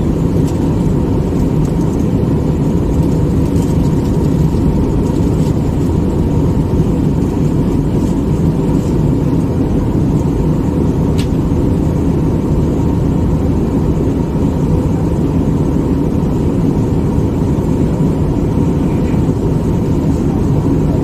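Steady cabin drone of a jet airliner in cruise: engine and airflow noise heard from inside the cabin, with a faint steady whine over it.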